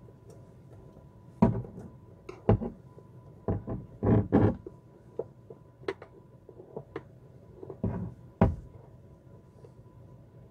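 Irregular knocks and clicks of hands working the parts of an RV toilet's water valve, a dozen or so sharp taps and thunks, with a cluster of them about four seconds in.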